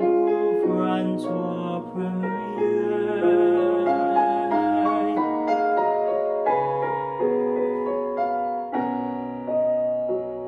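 Piano accompaniment playing an instrumental interlude between the sung lines of an art song: a steady run of melody notes over sustained chords.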